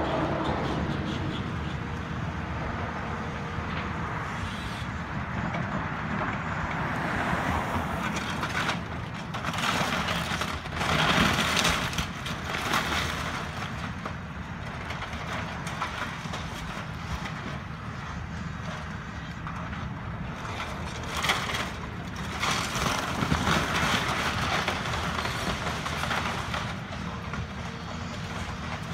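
Caterpillar track hoe's diesel engine running steadily while it tears into a house. Louder stretches of cracking and crunching come about nine seconds in and again a little after twenty seconds.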